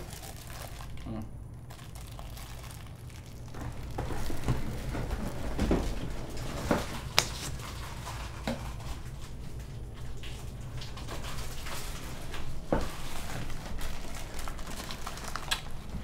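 Scattered light clinks, knocks and rustles of food and packaging being handled at a kitchen counter, over a low steady hum.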